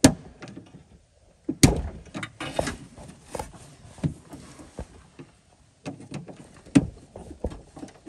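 A small tool prying and clicking at a plastic clamshell clip on a rusty threaded door-lock rod inside a truck door, working it loose. Irregular sharp clicks and knocks, the loudest at the very start and about one and a half seconds in.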